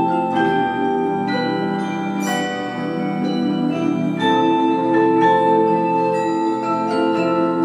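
A percussion ensemble of marimbas, vibraphones and other mallet keyboard instruments playing a piece together, with notes struck in quick succession and left ringing over one another in chords.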